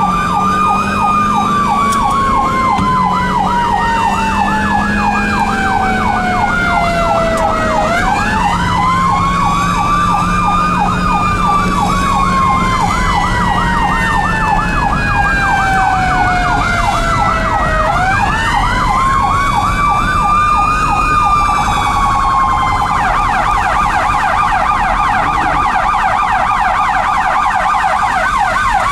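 Dual ambulance sirens: a Federal e-Q2B winding up fast and coasting slowly down in long wails about ten seconds apart, over a Whelen electronic siren running a fast yelp. About three quarters of the way through, the yelp switches to a faster warble and the wail stops, winding up again at the very end.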